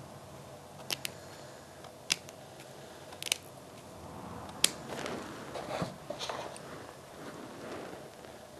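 Scissor tip and tweezers picking at a linen-covered wash button with a metal ring inside, as its fabric layers are pried apart: a handful of sharp clicks over the first five seconds, then a stretch of scratching and rustling that fades away.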